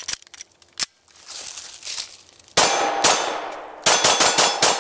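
Glock 22 pistol firing .40 S&W rounds at steel targets: a single shot about halfway through, then a quick string of about six shots near the end. The steel plates clang and ring on after the hits.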